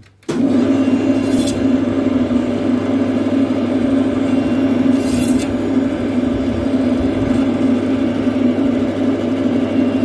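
Electric band saw switched on just after the start, its motor and blade then running steadily with a constant low hum.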